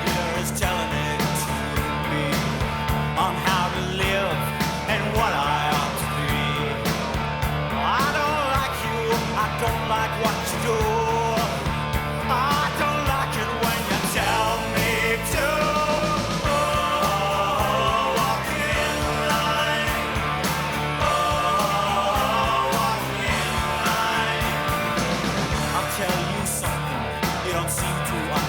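Rock band music: electric guitars, bass and drums playing continuously.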